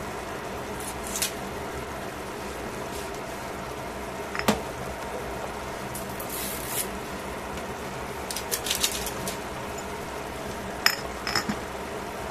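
Sauce simmering around chicken and shimeji mushrooms in a stainless pot: a steady hiss with a low hum underneath, broken by scattered pops and spits. The sharpest pop comes about four seconds in, and a few come in quick clusters near the end.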